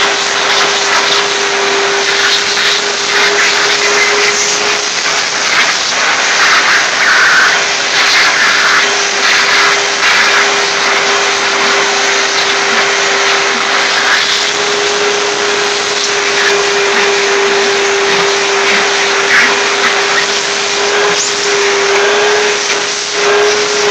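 Shop-vac running with a steady hum and a loud suction rush whose hiss shifts irregularly as the hose nozzle is drawn over a cat's fur.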